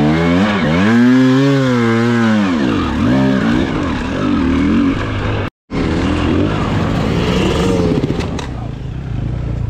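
Enduro motorcycle engine revving up and down repeatedly, its pitch rising and falling every second or so. The sound cuts out for an instant about halfway through, then the engine runs on at lower, steadier revs with another rise near the end.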